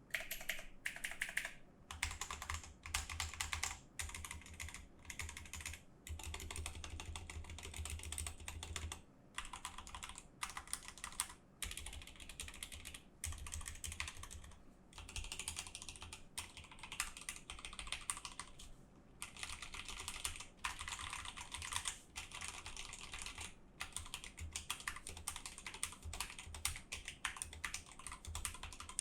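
Typing on an Akko 3084 mechanical keyboard with Akko Pink linear switches (an MX Red equivalent): rapid runs of keystroke clacks broken by short pauses.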